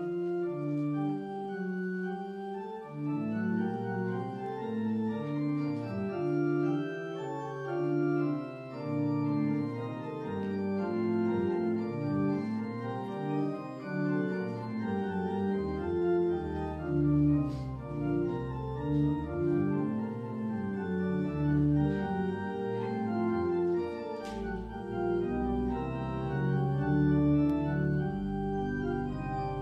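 Church organ playing a slow piece of sustained chords, with deep bass notes coming in during the second half.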